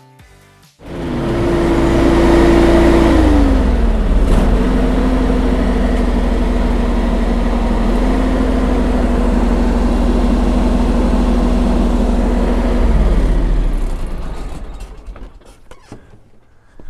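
John Deere X739 garden tractor's engine running with the mower deck blades engaged while a garden hose feeds water through the deck washout port. It starts about a second in, drops in pitch about three seconds later and holds steady, then winds down and stops near the end.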